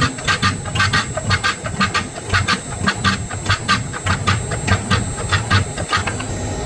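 Rapid, evenly spaced hammer blows on hot steel during forging, about five strikes a second, stopping near the end.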